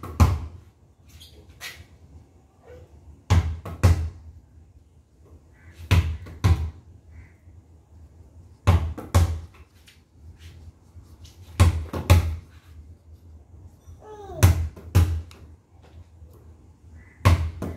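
Basketball bounced on a brick-paved floor, in groups of two or three bounces repeated about every three seconds.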